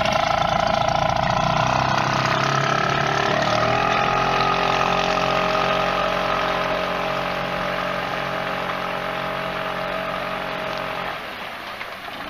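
Mercury 5 hp outboard motor on a kayak running under way, rising in pitch about three seconds in as it picks up speed, then running steadily and growing fainter near the end as the kayak moves off.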